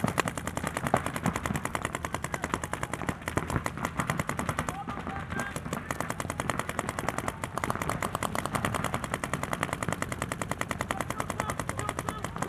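Tournament paintball markers firing in rapid streams, many shots a second, a continuous rattle with no pause.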